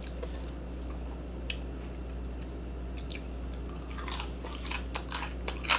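Close-up eating sounds: a person chewing food, with short wet mouth clicks and smacks, a few at first and more frequent near the end, over a low steady hum.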